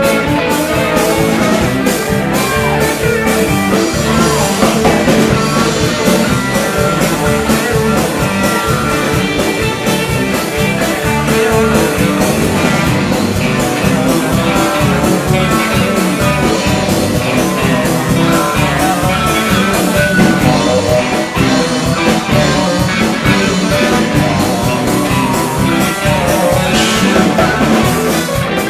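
Live rock band playing loud: electric guitars over bass guitar and a drum kit.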